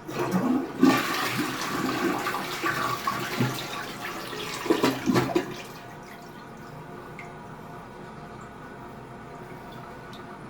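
Toilet flushing, fitted with a newly replaced flapper: a sudden rush of water for about six seconds that ends in a loud gurgle as the bowl empties, then the quieter hiss of the tank refilling.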